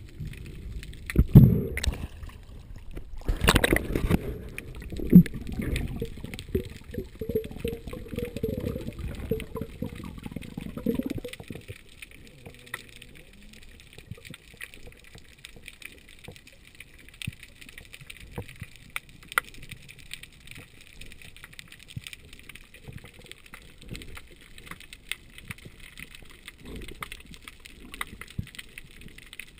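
Water sloshing and bumping against a GoPro in its underwater housing while a spearfisher swims and dives, with a few loud knocks in the first few seconds. After about eleven seconds it drops to a quieter underwater hiss with scattered faint clicks.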